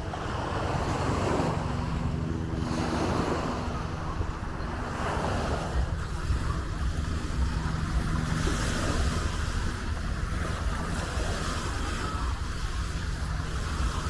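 Small waves breaking and washing up on a sandy shore, with wind buffeting the microphone. A motorboat's steady low drone runs underneath for most of the time.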